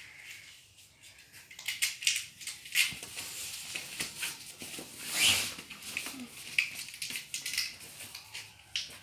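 Paper banknotes rustling and crinkling as they are folded, handled and pushed into the slot of a piggy bank, with scattered small clicks and taps. A louder rustle comes about five seconds in.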